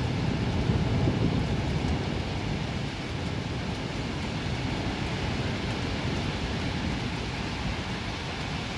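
Steady rain hissing, with a low roll of thunder that peaks about a second in and dies away over the next couple of seconds.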